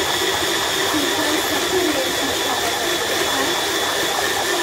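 Electric blender running steadily, pureeing apricots with their skins on, with a steady high motor whine over the churning.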